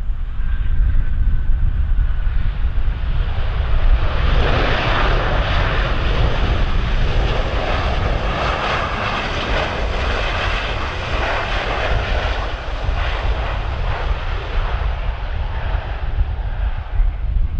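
Jet airliner passing the runway. Its engine noise swells about four seconds in, holds loud through the middle, then fades toward the end, over a steady low rumble of wind on the microphone.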